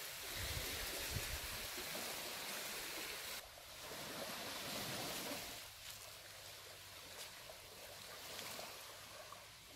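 Gentle sea waves washing along a sandy shore, heard as a steady hiss, with wind rumbling on the microphone in the first few seconds. The hiss dips briefly about three and a half seconds in and grows quieter over the second half.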